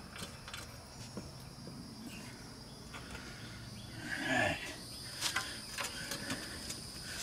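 Steady high-pitched chirring of insects, crickets or cicadas, with scattered small clicks and a brief rustle about four seconds in from handling work gloves and tools.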